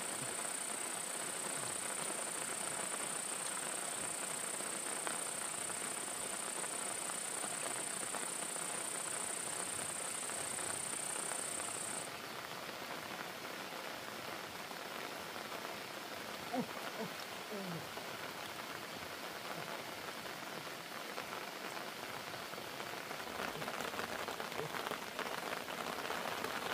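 Steady rain falling as an even hiss. A high, steady insect drone sounds over it and stops about halfway through.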